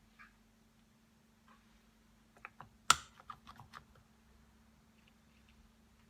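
A quick run of small hard clicks and taps, with one sharp knock about three seconds in, as of parts and hand tools being handled during bench work on a rotary hammer.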